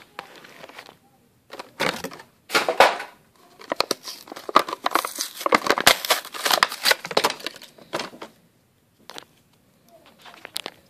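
Plastic blister pack on a Hot Wheels card being torn open by hand. Bursts of crinkling and tearing fill the middle, thinning to a few scattered clicks near the end.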